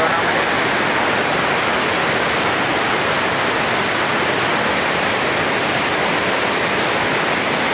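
Swollen, silty mountain river in spate rushing over boulders: a loud, steady roar of whitewater.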